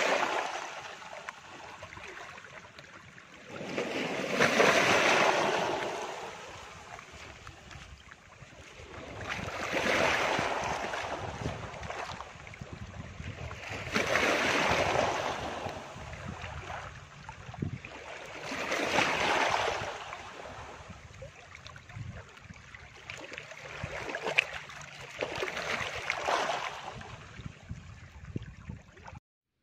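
Ocean surf: waves breaking and washing back, swelling up and ebbing away about every four to five seconds, then cutting off abruptly near the end.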